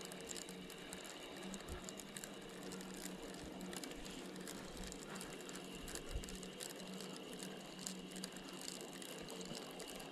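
Spinning reel being cranked to bring in a hooked fish: a quiet, steady gear whir with fine rapid clicking.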